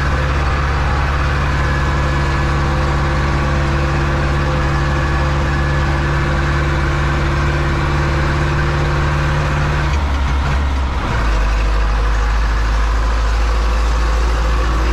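Zetor 7245 tractor's four-cylinder diesel engine running steadily under load, heard from inside the cab while hauling a wheat trailer. About ten seconds in the engine note breaks off briefly and settles lower, as the tractor shifts up a gear.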